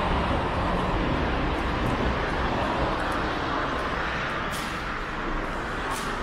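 Busy city street ambience: a steady hum of road traffic on a wide avenue, with a couple of brief high hisses in the last two seconds.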